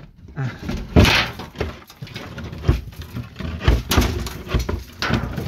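Irregular knocks, clatters and scraping of soffit and fascia material being handled and pulled at, with the loudest knock about a second in.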